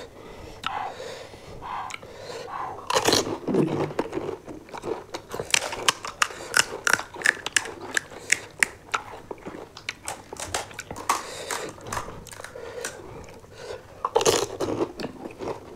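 Close-up crunching and chewing of pani puri: crisp hollow fried puris bitten whole and chewed. There is a loud bite about three seconds in and another near the end, with a dense run of sharp crackles in between.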